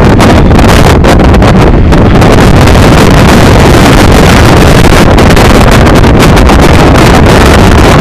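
Strong wind buffeting the phone's microphone, a loud, distorted rushing noise that never lets up.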